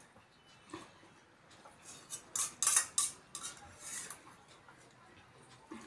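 Steel spoons clinking and scraping in stainless steel bowls and plates as sambhar is spooned and sipped, with a cluster of short, loud sips about two to three and a half seconds in.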